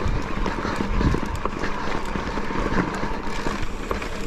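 Electric mountain bike riding over a rough, rocky track: tyres crunching and knocking over loose stones and the bike rattling in a steady run of small irregular clicks, over a low rumble.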